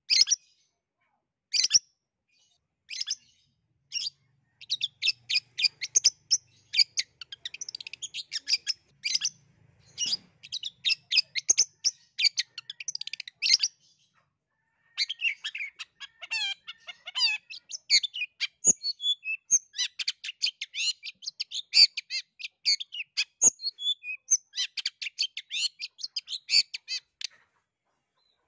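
Long-tailed shrike (cendet) singing a fast, chattering run of short high chirps, breaking off briefly about halfway through and stopping shortly before the end.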